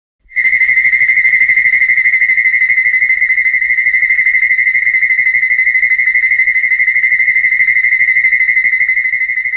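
King Ghidorah sound effect: a high, steady electronic-sounding tone with a fast pulsing warble, starting abruptly just under half a second in and holding at one pitch.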